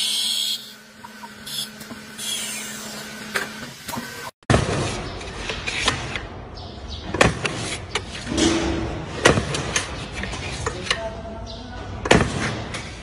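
A wood lathe spins a wooden tube with a steady motor hum while a cutter shaves it, the loud hiss of cutting dropping off under a second in. After a break about four seconds in, a bench-mounted hand cutting jig stamping sandpaper pads gives a string of sharp clunks and knocks over the rustle and scrape of the sandpaper.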